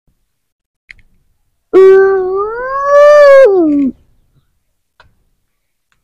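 A toddler's long, drawn-out wordless vocal sound lasting about two seconds, rising in pitch and then sliding down at the end.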